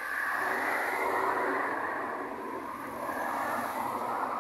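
A car driving past close by, mostly the hiss of its tyres on the road, swelling in at the start and fading off near the end.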